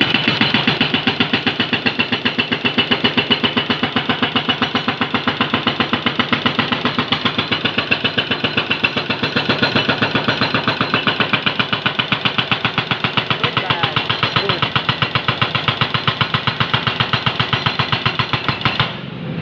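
Hydraulic breaker on a Jonyang JY623E excavator hammering, a fast, even stream of blows, several a second, that stops shortly before the end.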